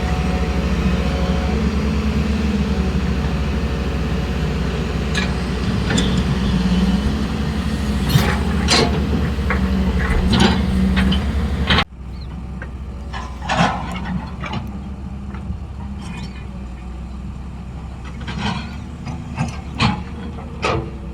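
A motor running steadily, with scattered sharp clicks and knocks. About twelve seconds in the sound cuts abruptly to a quieter background with more scattered clicks.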